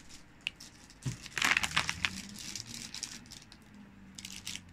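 Sweet packets being handled, their wrappers crinkling in a few irregular bursts, the loudest about one and a half seconds in.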